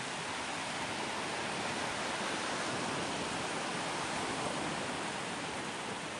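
Sea surf washing onto a beach: a steady hiss of breaking waves that swells a little in the middle and eases near the end.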